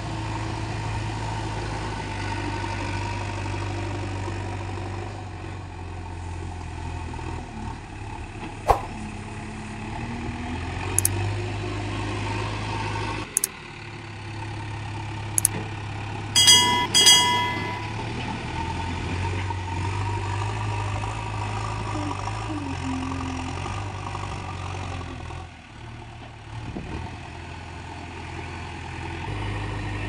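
JCB backhoe loader's diesel engine running steadily under working load, with a few sharp knocks scattered through and a short burst of high beeps about sixteen seconds in.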